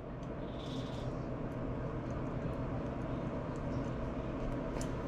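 Steady low rumbling noise that swells up just before and then holds level, with a few faint light clicks over it.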